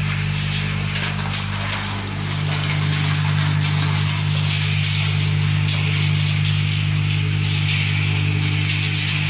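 Walnut-cracking machinery running: a steady electric-motor hum under a continuous crackle and rattle of nuts and shells passing through.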